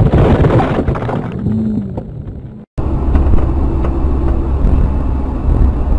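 Vehicle noise: a loud, rough rumble fading away over the first few seconds, then breaking off at an edit. After the cut comes a new steady low rumble of a moving car.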